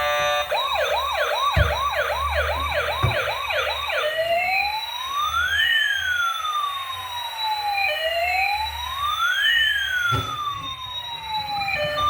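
A toy emergency vehicle's electronic siren sounding: a fast yelp of about two or three sweeps a second for the first four seconds, then switching to a slow wail that rises and falls twice. A low hum runs underneath.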